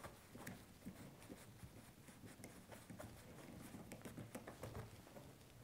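Faint scratching and light irregular clicks of small screws being turned back into the clutch housing of a shade lift system.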